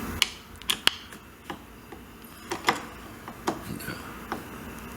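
Scattered sharp clicks and light metallic taps from a hand tool working the small cover bolts of a two-stroke jet board's carburetor as they are tightened down: about eight or nine irregular clicks, the loudest within the first second.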